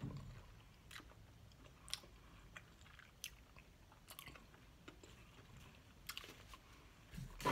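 Faint chewing of fried chicken with the mouth closed: soft wet mouth clicks and smacks about once a second, with a louder pair of smacks near the end.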